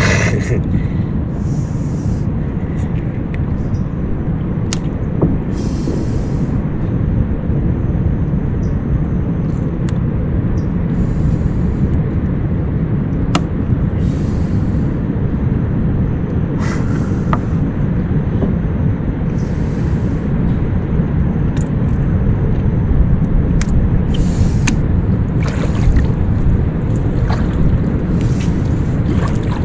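A steady low rumble, with short bursts of high hiss every few seconds.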